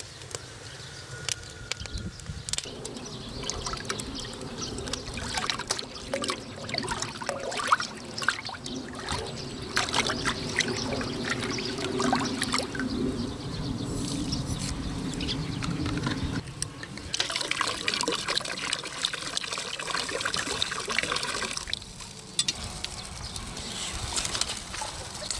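Water sloshing, splashing and pouring in a large cast-iron cauldron as it is scooped and stirred with a bowl, with scattered clicks throughout. A steadier pouring hiss runs for several seconds past the middle.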